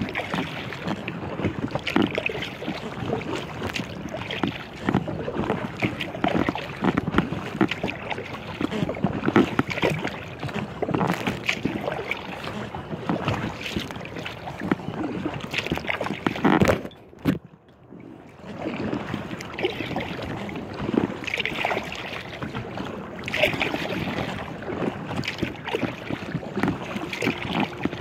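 Choppy lake water lapping and splashing against the hull of an inflatable kayak, with wind noise, in a steady irregular wash; the noise drops away briefly a little past halfway.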